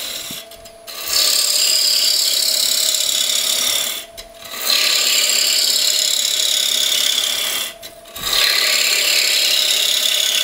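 Bowl gouge pull-cutting the outside of a wooden bowl blank spinning on a wood lathe: a loud hissing cut that comes in three passes of about three seconds each, broken by short pauses, with the lathe's faint steady hum in the gaps.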